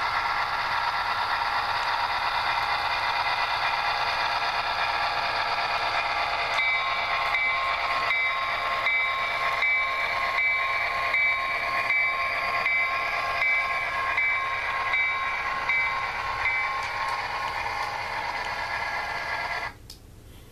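Model diesel train running along its track with a steady whine. From about 6 s to 16 s a short ringing tone repeats about one and a half times a second. The sound cuts off suddenly near the end.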